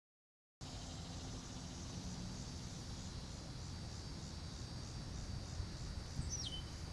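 Insects trilling steadily in a high-pitched, pulsing chorus over a low rumble. A short whistle slides downward about six seconds in. The sound starts after a half-second dropout.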